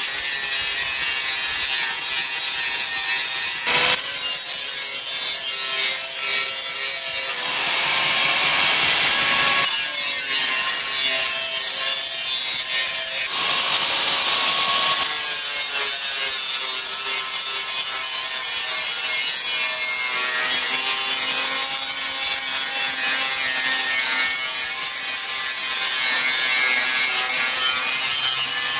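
Electric angle grinder running against the steel blade of a fodder chaff cutter, sharpening it: a steady high motor whine under a continuous grinding hiss. The hiss dips briefly and then swells harsher twice, about a quarter and about halfway through.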